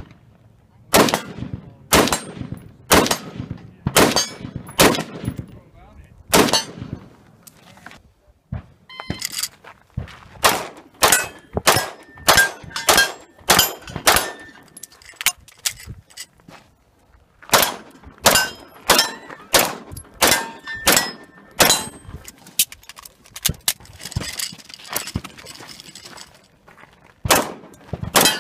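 Competition gunfire: six rifle shots from a prone position about a second apart, each with a long echoing tail, then rapid strings of semi-automatic pistol shots, with short metallic rings from hits on steel targets.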